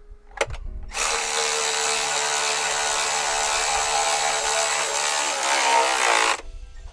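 Cordless electric ratchet running for about five seconds, spinning a socket down onto a battery hold-down nut. Its pitch sags just before it stops as the nut tightens.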